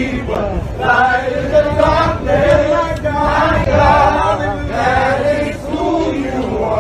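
A crowd of voices singing together in unison, a chant-like song in repeated phrases about a second long, over steady outdoor crowd noise.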